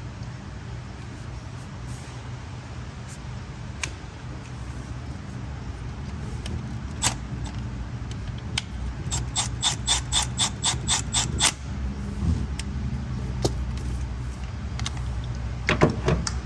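Ratchet wrench clicking in a quick, even run of about a dozen strokes partway through, with scattered single tool clicks and a louder clatter near the end, as spark plugs are swapped between cylinders. A steady low hum runs underneath.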